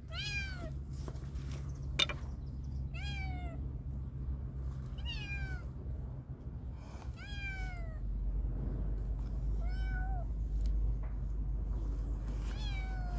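A cat in a pet carrier meowing over and over: about six drawn-out meows a couple of seconds apart, each rising and then falling in pitch. A steady low rumble runs underneath and grows louder about two-thirds of the way through.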